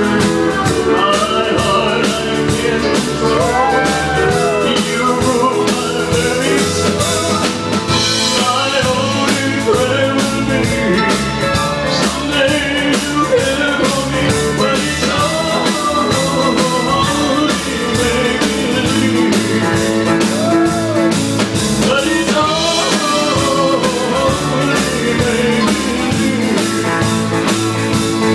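Live band playing: electric guitars, bass guitar and drum kit, with bending guitar notes and singing.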